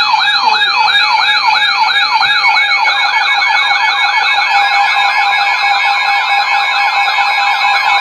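Several weather alert radios sounding their alert alarms at once, overlapping warbling siren tones that rise and fall about twice a second over a steady high beep, with a faster warble joining about three seconds in. The alarm signals that a new warning, a Special Marine Warning, has just come in over NOAA Weather Radio.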